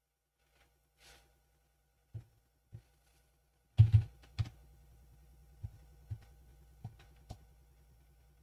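Keys pressed on a computer keyboard: a few scattered clicks, the two loudest close together about four seconds in, over a faint steady hum.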